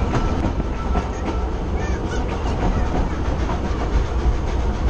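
Narrow-gauge steam train rolling along the track, heard from outside the carriage: the steady rumble of the wheels with scattered clicks over the rail joints, and wind rushing over the microphone.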